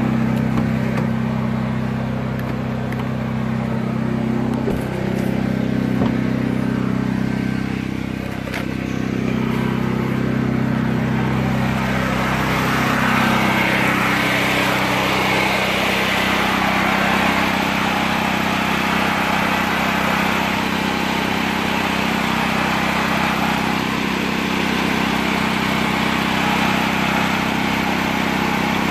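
Chicago Electric portable generator's gasoline engine running steadily, freshly started after four years in storage. About twelve seconds in, its sound turns harsher and brighter and stays that way.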